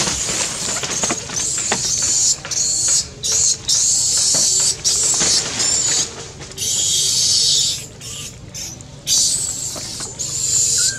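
Macaques screaming in high, wavering squeals, one after another with short breaks, as they scramble at a hand for food.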